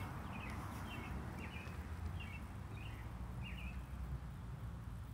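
A bird chirping: short repeated notes about twice a second, stopping a little before the end, over a steady low outdoor rumble.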